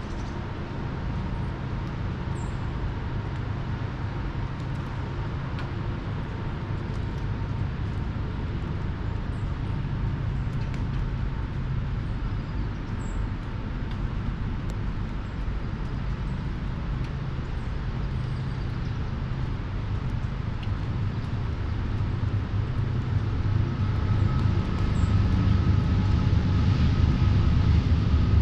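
Steady low rumble of distant motor traffic that swells over the last few seconds, with a few faint, high bird chirps.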